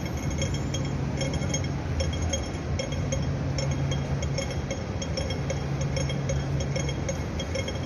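Audible pedestrian-crossing signal ticking in an even, repeating rhythm, over a steady low hum of city traffic.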